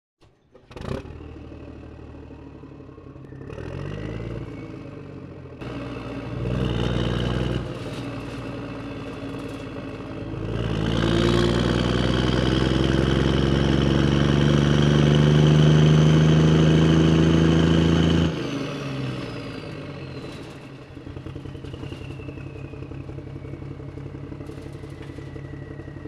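Volkswagen Golf 5's 1.9 TDI four-cylinder diesel engine starting about a second in, blipped twice, then held at high revs for several seconds before dropping back to a rattly idle. A high whine climbs with the revs and glides slowly down after they drop.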